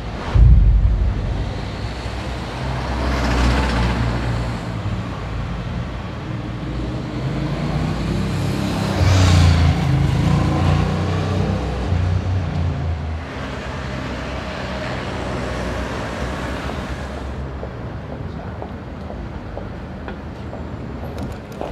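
Street traffic: vehicles passing one after another over a steady low rumble of engines. A loud low boom comes about half a second in.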